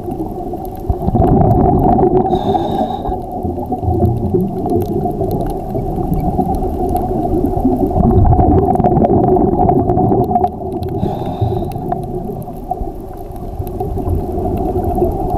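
Underwater sound picked up inside a camera housing on a scuba dive: a steady droning hum over a low rumble that swells and fades. Twice a short hiss cuts in, about two seconds in and again about eleven seconds in, typical of a diver's regulator drawing a breath.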